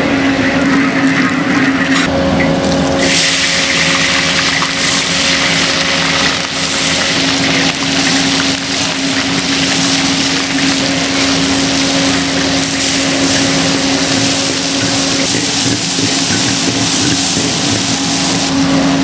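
Food frying in hot oil in a wok. About three seconds in, a loud, steady sizzle starts as chopped aromatics and then shrimp cook, and a metal spatula stirs them. A steady low hum runs underneath.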